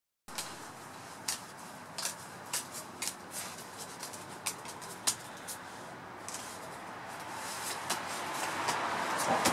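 Playing cards being dealt and laid down on a table one by one: a string of light, irregular slaps and snaps over a hiss that grows louder over the last few seconds.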